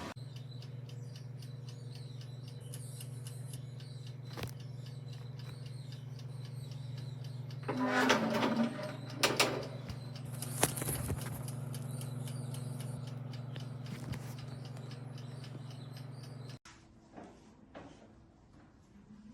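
Our Place Wonder Oven countertop air fryer oven running with a steady low hum. A few clicks and a short burst of clatter come about halfway through. The hum cuts off suddenly near the end.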